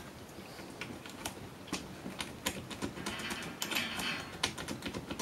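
Irregular small clicks and rattles of a multi-pin cable connector being worked loose by hand, thickest a little past the middle.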